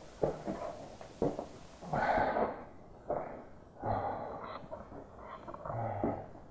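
A person breathing hard in irregular heavy breaths close to the microphone, about one a second, out of breath from climbing.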